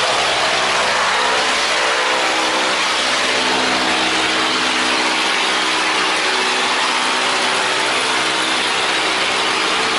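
Boat engines running steadily, a constant engine drone under a loud, even rushing noise.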